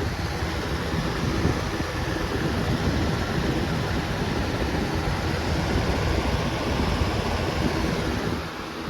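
Lasko B20200 box fan running on high, its airflow buffeting the microphone with a loud, gusty wind noise. The buffeting eases near the end.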